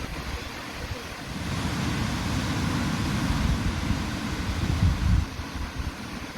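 Ocean surf on a beach, with a wave swelling and washing in over a few seconds before easing near the end. Wind rumbles on the microphone.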